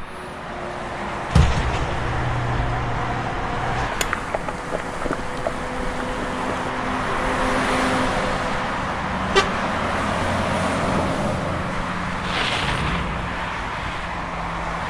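Busy street traffic: vehicle engines running, with horns honking on and off and a heavy thud about a second and a half in.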